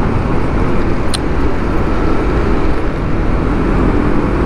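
Motor scooter riding along in city traffic: a steady rush of wind on the microphone over the running engine and the surrounding cars, with a short click about a second in.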